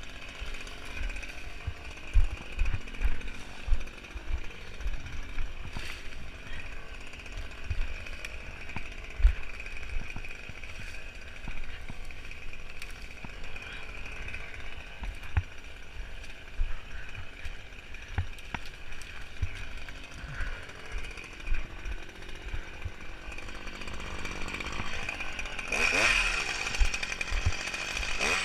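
Small two-stroke power-tool engine running at idle with a steady buzz, with low thumps as cut hedge brush is handled. Near the end it revs up and grows louder.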